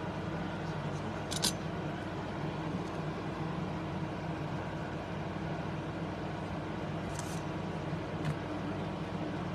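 Steady low mechanical background hum, with a few short clicks about one and a half seconds in and again near the end.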